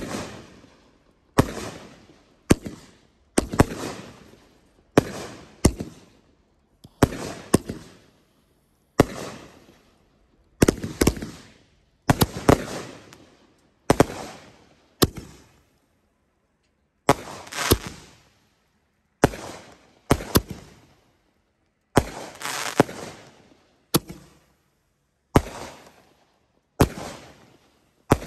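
Consumer fireworks going off in a long run of about two dozen shots, roughly one a second. Each shot is a sharp bang followed by a fading tail.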